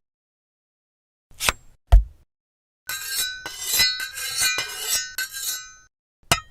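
Two sharp knocks, then about three seconds of dense clinking and rattling of small hard objects with a ringing tone, ending in a single sharp click.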